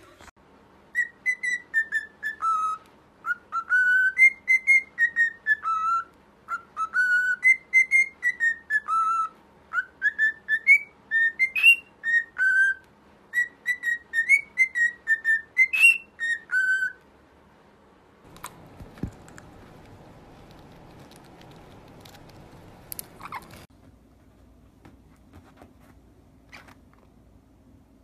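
Cockatiel whistling a tune: a long run of short whistled notes stepping up and down in a melody for about sixteen seconds. Then a few seconds of faint rustling noise with a few clicks.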